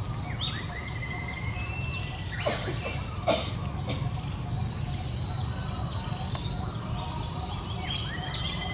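Wild birds chirping in the background: many short, rising chirps at varied pitches, over a steady low background rumble. Two short, sharp noises come about two and a half and three seconds in, the second the loudest.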